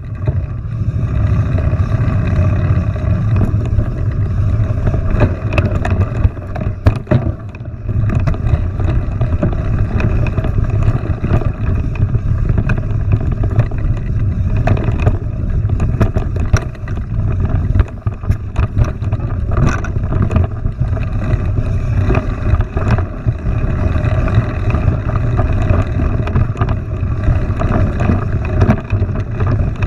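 Steady low rumble of wind buffeting the microphone, with frequent small clicks and knocks throughout.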